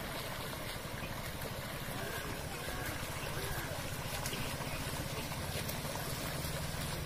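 Steady rushing of the Kamla River's floodwater flowing over a road, with a low rumble beneath it.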